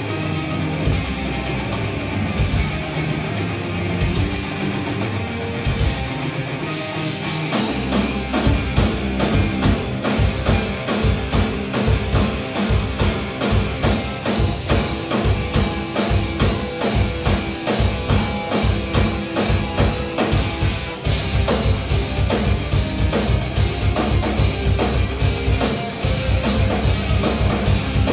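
Rock band playing live: electric guitar over bass, and about seven seconds in the full drum kit comes in with a steady, driving beat.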